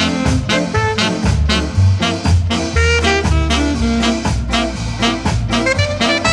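Late-1960s reggae music playing: a steady beat over a heavy bass line.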